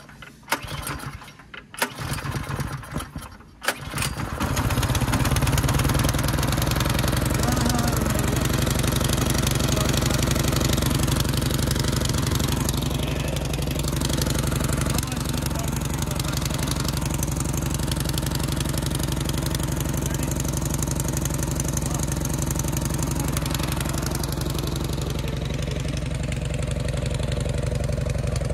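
Small gas engine of a Craftsman snow blower being started: a few short, uneven cranking sounds, then it catches about four seconds in and runs steadily.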